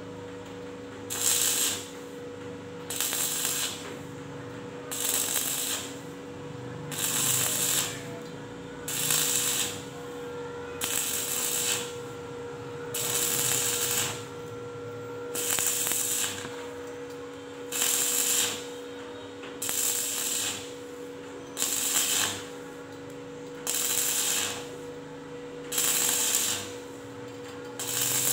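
Stick (arc) welding on a flat steel bar: the arc crackles and sizzles in regular surges about once a second or so. A steady hum runs underneath.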